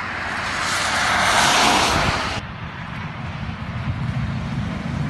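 A minibus passing on a wet road, its tyre hiss swelling to a peak and cutting off suddenly about two and a half seconds in. After that comes the low engine rumble of a passing tanker lorry.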